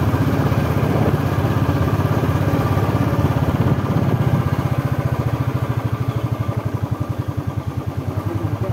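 Vehicle engine running steadily while driving slowly, a low drone of rapid, even firing pulses with road noise above it.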